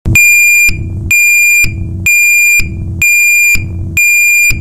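DNI4027 piezoelectric vehicle reverse (backup) alarm sounding its intermittent tone. It starts abruptly and gives loud, high-pitched beeps about half a second long, about once a second, five in a row, with a lower rumbling noise in the gaps between them.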